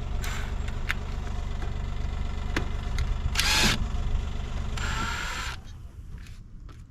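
A few sharp metallic clicks and two short scraping noises as brake parts and tools are handled, over a steady low hum that drops away about five and a half seconds in.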